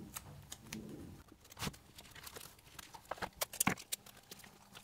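Scattered light clicks and taps of hands handling paper and small pieces of tape while taping parchment paper down over a sketchbook page, the sharpest taps coming in a cluster about three and a half seconds in.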